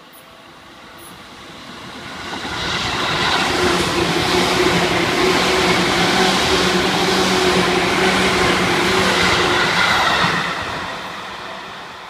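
Seibu 2000 series eight-car electric commuter train passing close by, its wheels rumbling and clattering on the rails. The sound builds over the first few seconds, stays loud for about seven seconds as the cars go by, then fades away.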